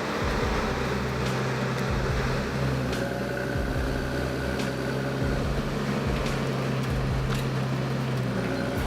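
Engine of a heavy forestry machine running steadily with a low hum, with a few scattered clicks and knocks from the machine at work.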